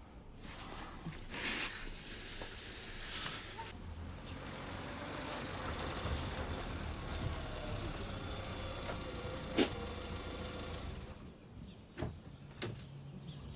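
Citroën Saxo small hatchback pulling slowly into a driveway and coming to a stop, its engine running steadily, with one sharp click about ten seconds in. The engine sound drops away after about eleven seconds, followed by a couple of small clicks.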